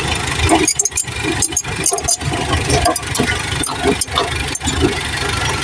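An engine running steadily, with many sharp clicks and knocks over it.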